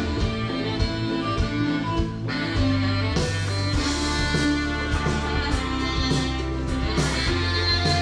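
Instrumental stretch of a rock song: guitars over a steady bass line and drum hits, with no singing.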